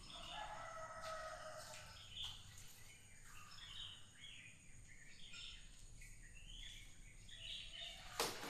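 Birds calling: one held call of about a second and a half at the start, then many short high chirps. A sharp knock near the end.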